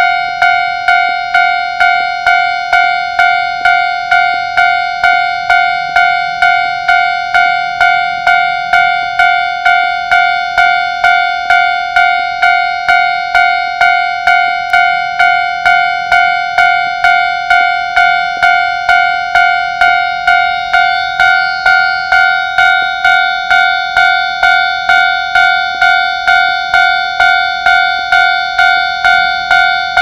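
Electronic railway level-crossing warning bell ringing, a single pitched 'kan-kan' strike repeating evenly a little under twice a second, which signals that a train is approaching the crossing.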